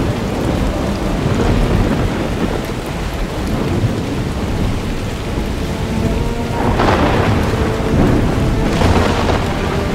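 Thunderstorm: heavy rain falling steadily with rumbling thunder, swelling louder twice in the last few seconds.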